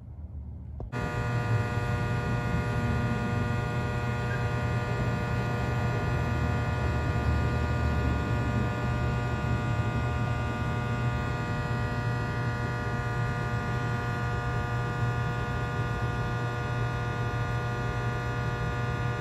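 TriMet MAX light rail car standing at a platform, its onboard electrical equipment giving a steady hum with a buzzing overtone. The hum starts suddenly about a second in.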